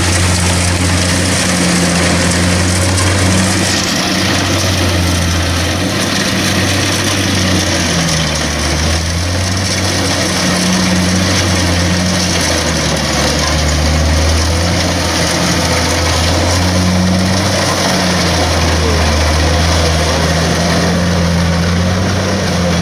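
Kubota DC-70 combine harvester's diesel engine running steadily under heavy load while cutting a dense rice crop in deep mud, its pitch wavering a little.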